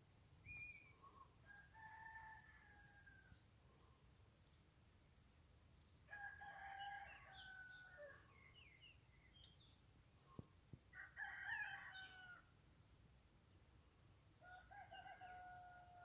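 Faint rooster crowing, four crows of about two seconds each spaced a few seconds apart, with small birds chirping.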